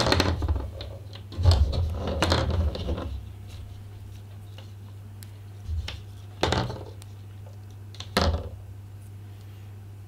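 Camera tether cords and their small discs being untangled and set down on a hard countertop: irregular bursts of light clatter and rustling, busiest in the first few seconds, then a few single knocks with pauses between. A steady low hum runs underneath.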